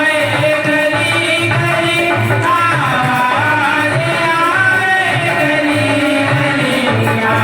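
Hindi devotional bhajan music: a steady hand-drum rhythm under a wavering, ornamented melody.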